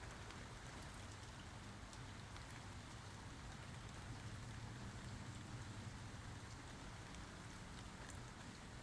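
Steady rain falling, with scattered ticks of individual drops over a faint low rumble.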